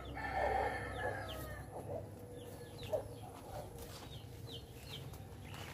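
Chickens calling, with one drawn-out call over the first second and a half and a few short clucks after it, while small birds chirp briefly in high short notes.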